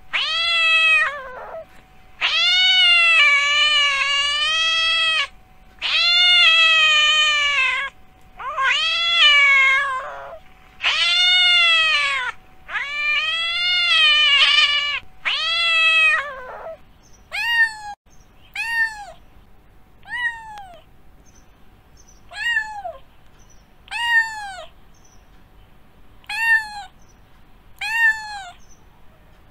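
Domestic cat meowing: a run of about seven long, drawn-out meows, then from about halfway shorter meows that fall in pitch, one every second or two.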